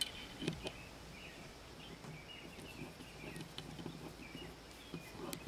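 A few sharp clicks of the Glock 19 pistol being handled as its sight is worked on, two about half a second in and one near the end, with faint bird chirps in the background.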